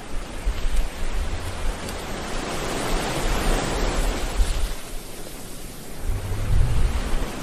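Wind buffeting the microphone: a steady rush with low rumbles that come and go.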